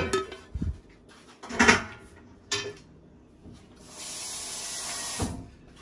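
Cookware knocking and scraping as a frying pan of sauce is emptied over lobster and crab in a steel pot, a few separate clunks in the first three seconds. About four seconds in a steady hiss runs for just over a second, then stops with a low knock.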